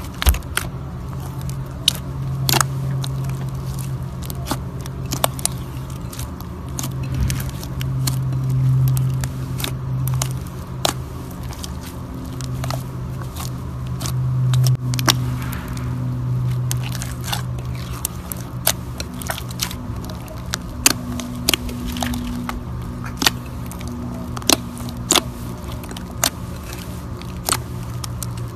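Slime being squeezed and kneaded by hand, with irregular sharp crackling pops as air pockets burst, over a steady low hum.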